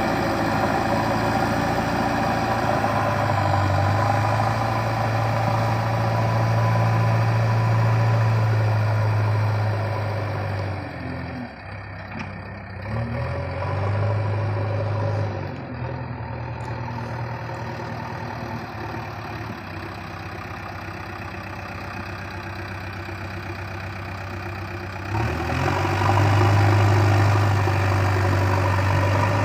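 Heavy diesel machinery engine running steadily with a deep hum. It is louder for about the first ten seconds, drops lower through the middle, and comes back louder with an abrupt step near the end.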